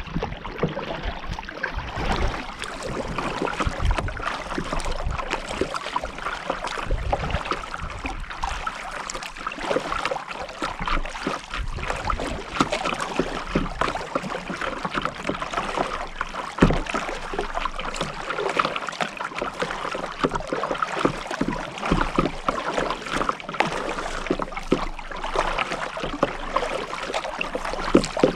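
Kayak on the move: paddle strokes dipping and splashing in the river, with water lapping and light irregular knocks against the hull.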